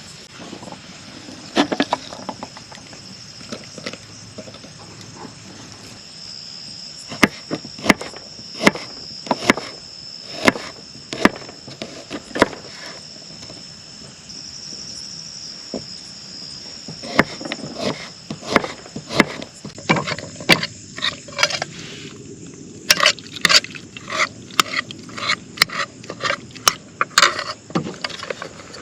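Insects trilling steadily in a high, even note that drops out about three-quarters of the way through. Over it come a series of sharp knocks or taps at irregular intervals, the loudest sounds, clustered in two runs.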